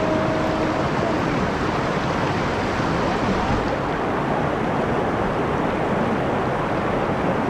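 River water rushing steadily over a low weir and through the shallows, an even, continuous rush.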